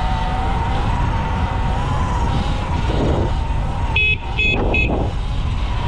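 Wind buffeting the microphone as a Sur-Ron X electric dirt bike rides along, its electric motor giving a steady whine that wavers slightly in pitch. About four seconds in come three short, high beeps in quick succession.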